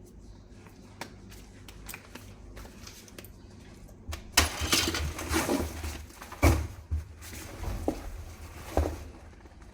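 Handling noise: scattered light clicks, then about five seconds of louder rustling broken by a few sharp knocks.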